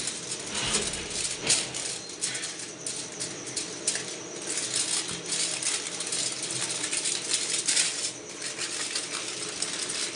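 Aluminium foil crinkling and crackling as it is rolled by hand into a tight round log, a dense run of small crisp clicks.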